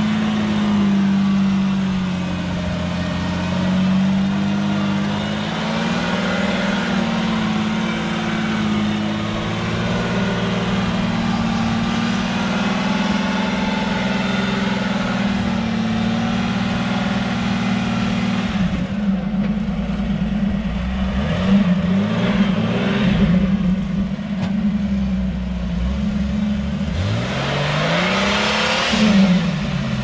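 Off-road 4x4's engine running at steady revs, then revved hard several times in rising surges from about two-thirds of the way in. Near the end there is a loud burst of rushing noise along with a rev.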